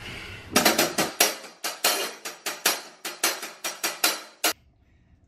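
Acoustic drum kit played with sticks: a steady beat of sharp drum and cymbal strikes, about five a second, cutting off suddenly near the end.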